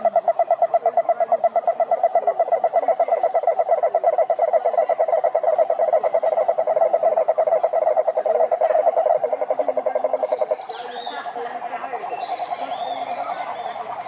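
Cururu toad (Rhinella marina) calling: a long, loud, low trill of rapid even pulses from its inflated vocal sac. The loud trill stops about ten and a half seconds in, and a quieter trill carries on under faint high chirps.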